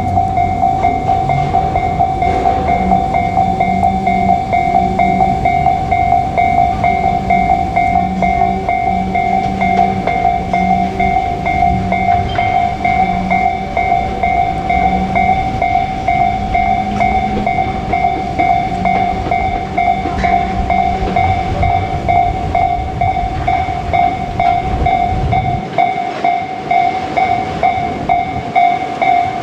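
Japanese level-crossing warning bell ringing in a steady repeating ding while a JR Kyushu 817-series electric train passes, its rumble and wheel clatter ending about 25 seconds in.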